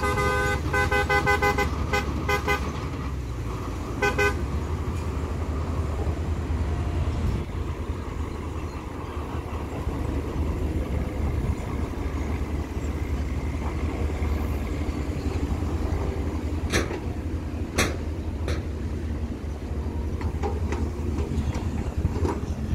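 A vehicle horn sounds in a quick run of short toots, then once more about four seconds in. Under it, heavy diesel engines of dump trucks and an excavator keep up a steady low running, with two sharp knocks about a second apart later on.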